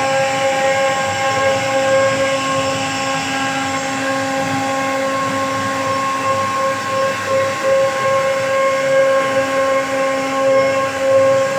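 CNC router spindle running at constant speed while cutting wood, a steady high whine over the hiss of the cut.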